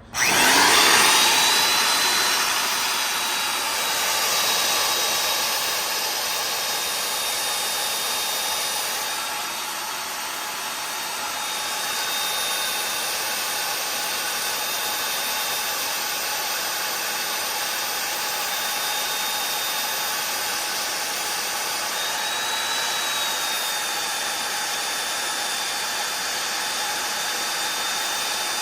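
Magnetic drill switched on and running steadily, its motor giving a high whine as the annular cutter bores a 5/8-inch hole through the steel truck frame.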